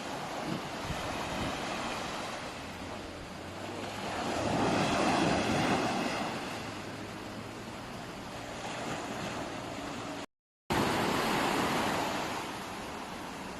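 Sea waves surging and washing in, swelling louder twice, with wind buffeting the microphone. The sound cuts out for a moment about ten seconds in.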